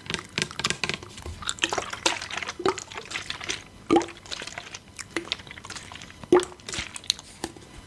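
Close-up wet ASMR sounds: irregular liquid clicks and drips, some with a short dropping blip, the two loudest about four and six and a half seconds in.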